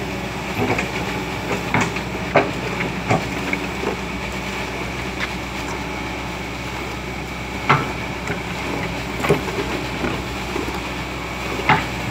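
Caterpillar 120B excavator's diesel engine running steadily, with a scattered series of sharp knocks, about seven in all.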